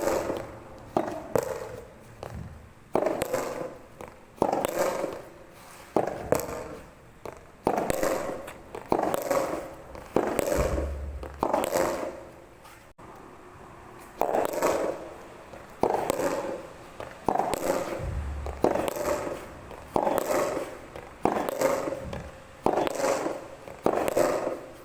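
Soft tennis rally: rubber soft tennis balls struck by rackets and bouncing on the court, a string of sharp pops about once a second, each fading quickly.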